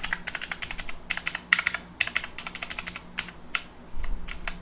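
Kemove 60% mechanical keyboard being typed on to test freshly fitted keycaps: quick flurries of sharp key clicks for the first two and a half seconds, then a few scattered single keystrokes.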